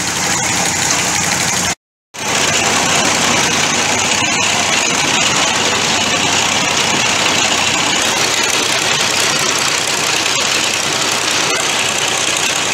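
Engine of the piling rig's equipment running steadily while a bored pile hole is flushed, with muddy slurry pouring out of the casing outlet. The sound cuts out briefly about two seconds in, then carries on unchanged.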